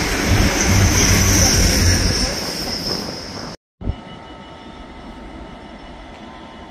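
A train passing on the rails, loud, with a high steady whine over the wheel noise. It cuts off suddenly about three and a half seconds in, and a much quieter steady background hum follows.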